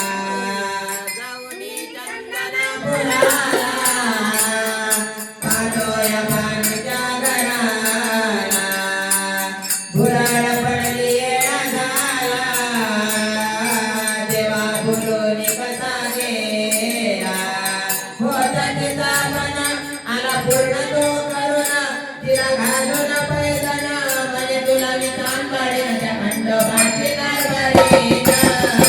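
Marathi devotional song music for Khandoba: a melody whose pitch bends up and down, over jingling percussion.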